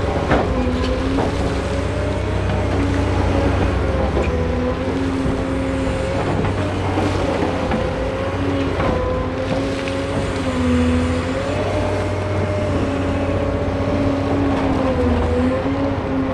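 Cat 385C large hydraulic excavator working: its diesel engine runs steadily under load, with a whine that wavers in pitch as the hydraulics are worked. A few short, sharp knocks sound over it, the loudest near the start.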